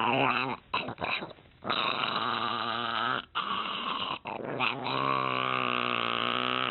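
A dog making long, drawn-out growling vocalizations with a wavering pitch, in several stretches broken by short pauses, the way a dog 'talks' back when coaxed.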